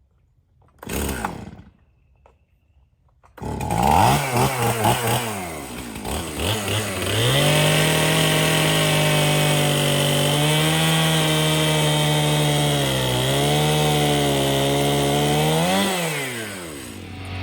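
A short scrape about a second in. Then, from about three and a half seconds, a small two-stroke chainsaw starts, revs up and runs at high speed, its pitch dipping and climbing again before it falls away near the end.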